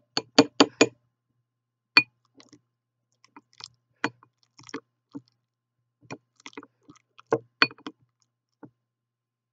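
Metal kitchen utensils knocking and clinking against a glass bowl while avocado is mashed: four quick knocks at the start, a sharp one about two seconds in, then irregular softer knocks with wet squelching of the avocado.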